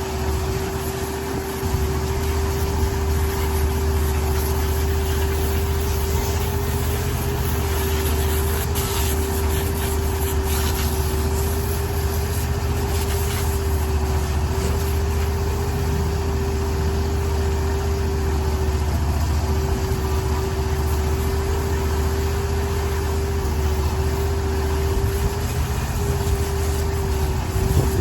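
An engine running steadily at constant speed: a low rumble with a steady hum above it, getting slightly louder about one and a half seconds in.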